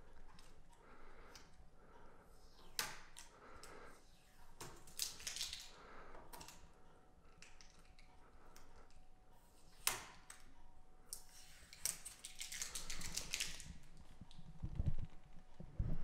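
Hands handling the front of a Denon AVC-X6500H AV receiver and its flip-down front door: scattered clicks and taps with some rustling, and a few low thumps near the end.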